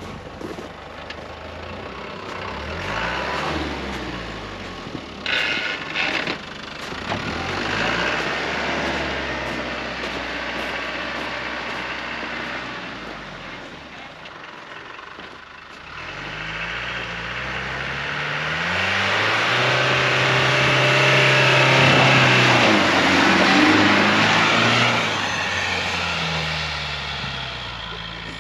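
Land Rover Defender's engine working hard as it climbs a snow-covered track, the revs rising and falling again and again as the tyres push through the snow. A few sharp knocks come about five to six seconds in, and the engine is loudest and steadiest in the second half.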